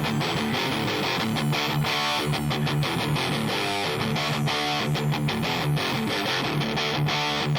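Background music: a guitar-led instrumental with a steady, even rhythm.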